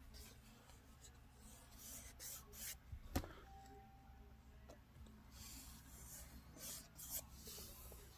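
Faint rubbing and scraping of hands handling the plastic HEPA filter housing of an upright vacuum, with one sharp click about three seconds in.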